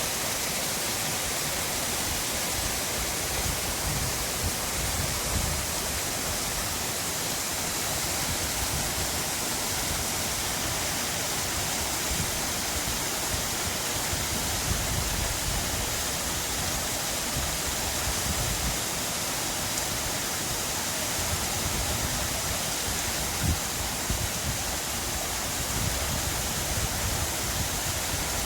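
Forest stream rushing steadily, a constant even hiss of running water. Low gusts of wind buffet the microphone now and then.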